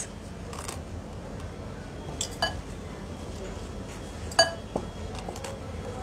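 Bowls and dishes clinking as they are handled on a counter: a couple of sharp, briefly ringing clinks about two seconds in, and a louder one a couple of seconds later.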